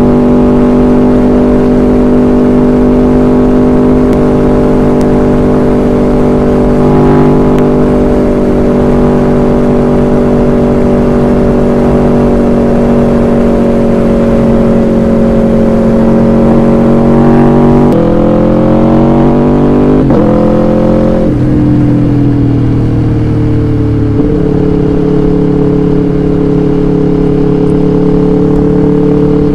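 Aprilia V4 motorcycle engine heard from the rider's seat, holding a steady drone at cruising speed over rushing wind. About eighteen seconds in the revs climb twice in quick succession, broken by a gear change, then drop back to a lower steady note.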